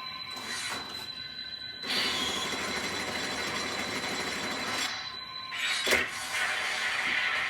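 Pachinko machine in play: a steady rattling, rushing clatter of machine sound that grows louder about two seconds in, with one sharp knock about six seconds in.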